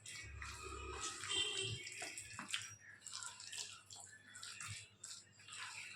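Wet squelching and squishing of raw chicken pieces being mixed by hand with a thick curd-and-egg masala marinade, in irregular strokes.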